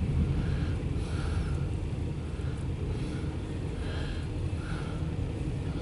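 Loaded autorack freight train rolling past, a steady low rumble.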